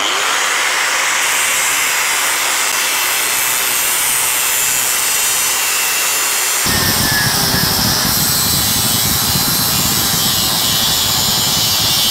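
Corded electric angle grinder cutting through a steel motorcycle frame tube with a steady grinding whine. About halfway through the sound suddenly grows deeper and fuller as the disc bites into the metal.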